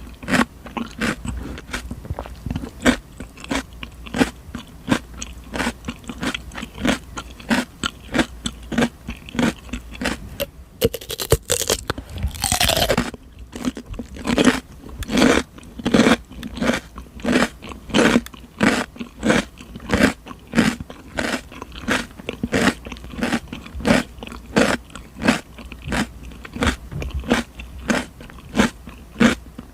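Close-miked chewing of crisp raw cucumber: sharp, wet crunches about two a second, with a longer, louder crunch about eleven to thirteen seconds in.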